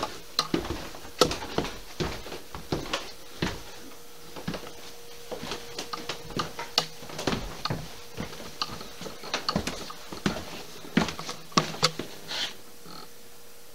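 Irregular footsteps and knocks of people walking down a staircase, with louder knocks near the end, over a faint steady hum.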